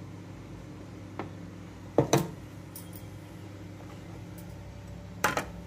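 Steel kitchen utensils clinking: a light tap about a second in, a sharper double clink around two seconds, and another double clink near the end, over a steady low hum.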